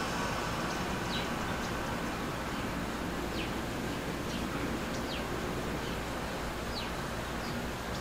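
Small birds chirping: about half a dozen short, high, falling chirps at uneven gaps over a steady outdoor background hiss.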